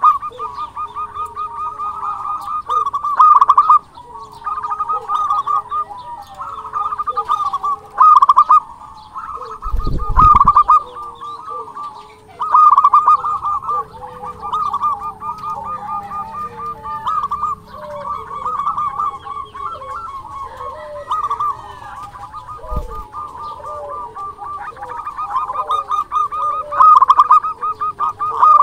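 Zebra dove (perkutut) cooing: phrase after phrase of rapid staccato, trilled coos, the loudest phrases coming every few seconds. A couple of short low thumps, one about ten seconds in and one near twenty-three seconds.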